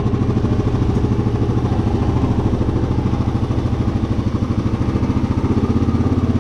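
Four-wheeler (ATV) engine running steadily at low revs, close to the microphone.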